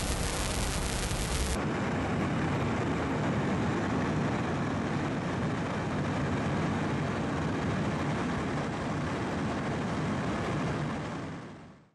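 Steady aircraft engine and cabin noise, a dense rumble that fades out near the end. It is preceded for the first second and a half by a bright hiss of wind and sea.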